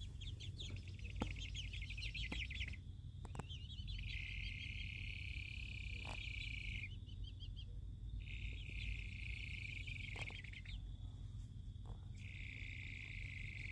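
Baby chicks' soft sleepy trilling, the sound called chickens snoring. A run of rapid, high peeps comes first, then three long, steady trills of about two seconds each, with short chirps between them.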